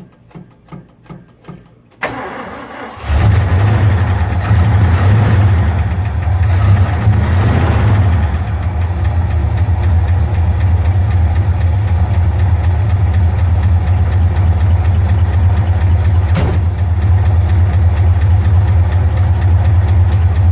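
1974 Ford F250's engine cranking on its starter, about three turns a second, then catching about three seconds in and running steadily. The start after new battery terminals were fitted suggests the old, worn terminals were the cause of the no-start, not the battery.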